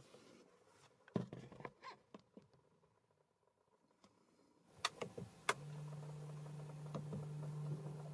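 Several sharp clicks of car buttons being pressed. A little over halfway in, a steady low electric motor hum starts as the electric parking brake moves into its brake-pad fitting position.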